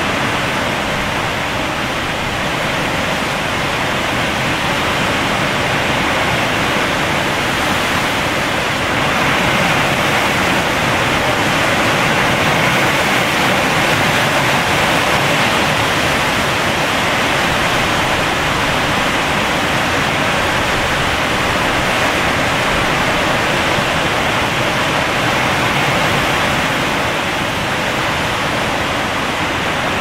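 Hurricane-force wind and driving rain rushing through large trees, a loud, steady rush that grows a little stronger about eight seconds in.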